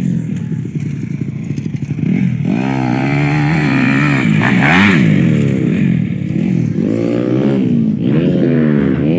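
Dirt bike engine idling, then revved up and down repeatedly from about two seconds in, each throttle blip rising and falling in pitch.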